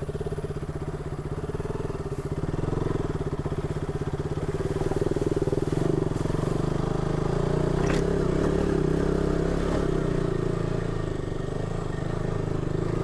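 Single-cylinder motorcycle engine running steadily at low revs, with a sharp click about eight seconds in.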